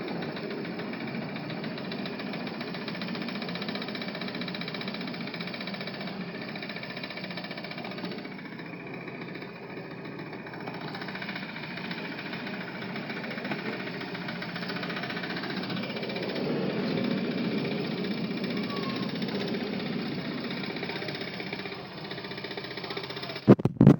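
Ride-on miniature garden train running, a steady engine-like rumble with rattling. A few sharp knocks near the end.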